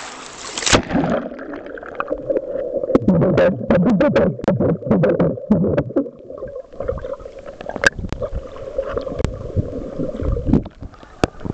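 Camera plunging into the sea with a sharp splash about a second in. The open-air surf hiss cuts out and turns into muffled underwater sound: a steady low drone and rumble with many sharp clicks and knocks.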